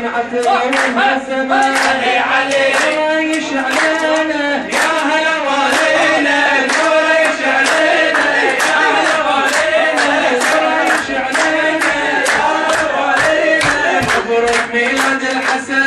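A group of men singing a celebratory chant together, with steady rhythmic hand-clapping to the beat.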